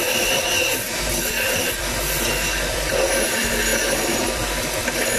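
Bench grinder with a belt-sander arm running, a rusty steel hatchet head held against the abrasive belt to grind the rust off to bare metal; a steady, unbroken grinding noise over the motor's hum.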